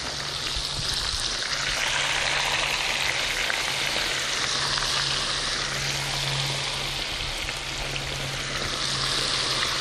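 Pieces of garlic-marinated Spanish mackerel deep-frying in hot oil in a pan on a propane burner, a steady crackling sizzle that grows louder a second or two in. A low steady hum runs underneath.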